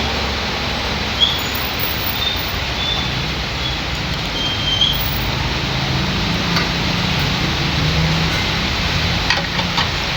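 Steady rain with a low vehicle engine hum underneath, plus a few faint short chirps and small clicks.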